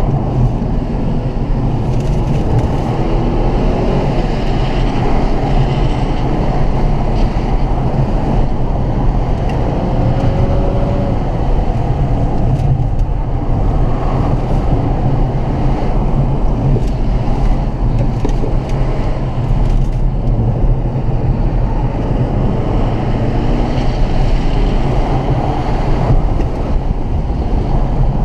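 Mercedes-Benz CLA250 heard from inside the cabin while driving: a steady low rumble of its turbocharged four-cylinder engine and tyres on the road, with no sharp events.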